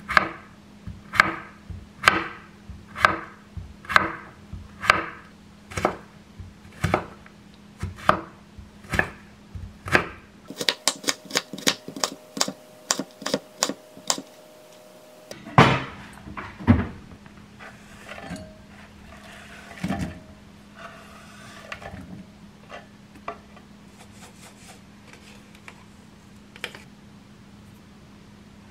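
Chef's knife chopping vegetables on a wooden cutting board. It slices cucumber at about one cut a second, then gives a rapid, sped-up run of cuts through carrot. After that come quieter light clinks and taps of a spoon in a glass cup.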